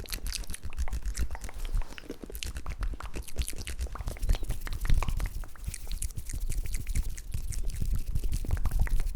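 Close-miked ASMR mouth sounds: a dense run of wet clicks and pops, several a second.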